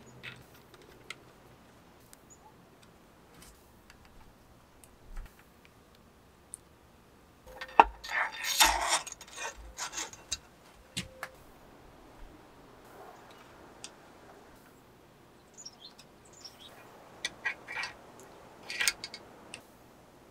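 Bicycle stem, handlebar and bolts being handled and fitted to the fork steerer: scattered small metallic clicks and taps, with a louder burst of clattering about eight seconds in and another near the end.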